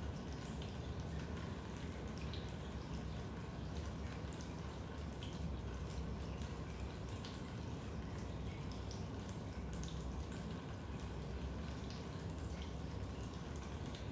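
Raindrops dripping into a basement: many small, irregular drips over a steady low rumble.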